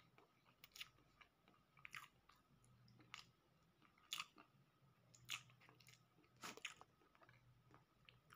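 Close-miked mouth sounds of a person eating cheese roll: chewing and wet lip smacks, about one sharp smack a second, with finger licking.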